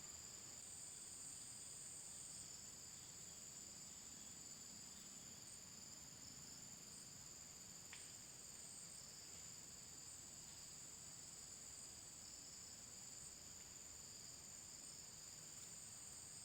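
Faint, steady high-pitched insect chorus droning without a break, with a single faint click about halfway through.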